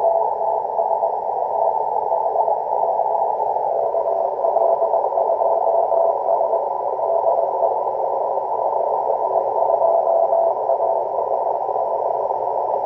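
Morse code (CW) signal from a distant amateur radio station heard through a shortwave transceiver: a single pitched tone keyed into dots and dashes in stretches, over a steady band of receiver hiss.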